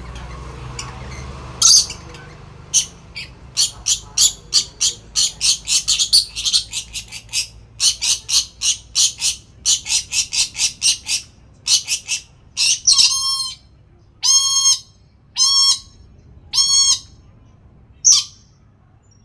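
Lory (nuri parrot) calling: a fast run of short, sharp chirps, about three or four a second, then four longer calls about a second apart and one last short call near the end.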